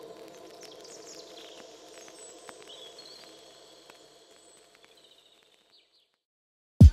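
Faint background ambience with a few thin high tones, fading out to silence about five seconds in.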